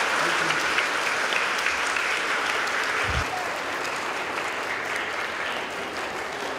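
Audience applauding, the clapping slowly dying down, with a single low thump about three seconds in.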